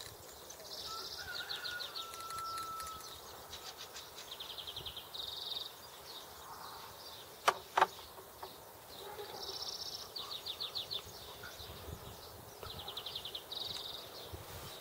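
A small bird singing a repeated high phrase, a short buzzy note and a fast trill, every few seconds. About halfway through, two sharp metal clinks a fraction of a second apart from steel hub parts and a screwdriver being handled.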